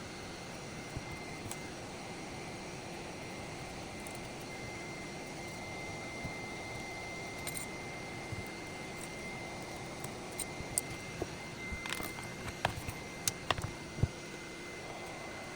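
Small sharp clicks and taps of plastic pry tools working the glued screen off an iPad Pro, bunched in the second half, over a steady background hiss with a thin high whine.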